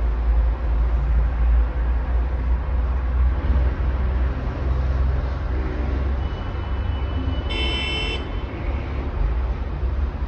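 Steady low rumble of heavy road traffic in a jam, with one short car horn toot about three-quarters of the way through.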